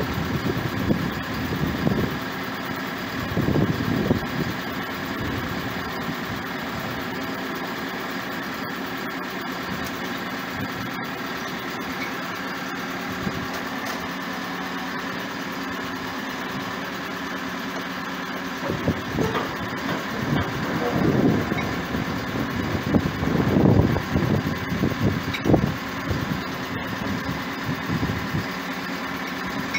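A boatyard travel lift's engine running steadily to power its hydraulics, with uneven louder low surges near the start and again in the last third.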